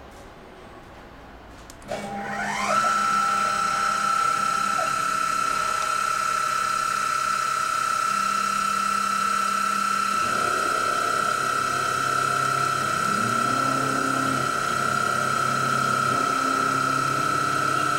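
Spindle of a Yornew XK200 micro CNC milling machine spinning up about two seconds in, its pitch rising to a steady high whine. From about ten seconds in, the small end mill cuts into the gold-coloured metal cover of a photoelectric element, and lower, shifting tones join the whine.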